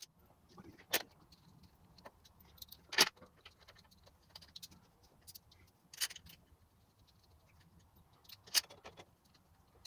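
Metal bolts clinking as they are handled and set into a dirt bike engine's clutch cover by hand. There are four sharp clicks, with faint ticks between them.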